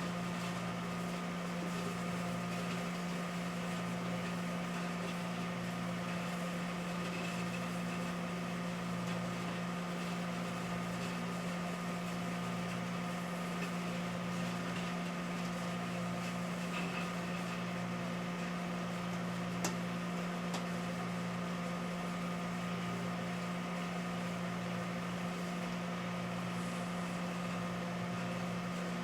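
Microwave oven running with five quince inside: a steady electrical hum over a lower drone that swells and fades in an even rhythm. A single sharp click comes about twenty seconds in.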